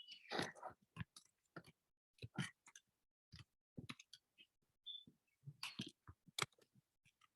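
Faint, irregular clicking and tapping close to the microphone, about a dozen short clicks with a few soft low knocks.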